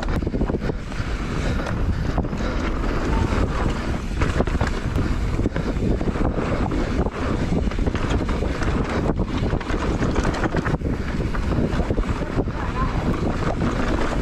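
Wind rushing over the camera microphone of a mountain bike descending fast, with the rumble of knobbly tyres on a dirt trail and frequent sharp knocks and rattles as the bike goes over bumps.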